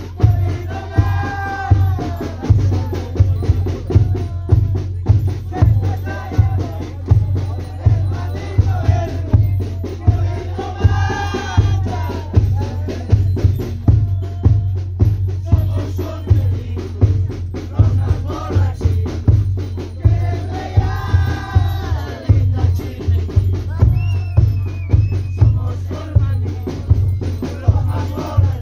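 Andean festival music: a large double-headed bass drum beats a steady pulse a little faster than once a second. A melody rises over it in phrases about every ten seconds.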